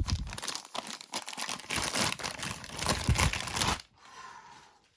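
Packaging crinkling and rustling as a camera lens hood is unwrapped and handled. The crackle is dense for most of the time, then drops to a faint rustle and stops near the end.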